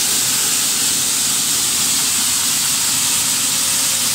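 Maize flour milling machinery running: a loud, steady mechanical hiss and whir from the mills and their belt drives.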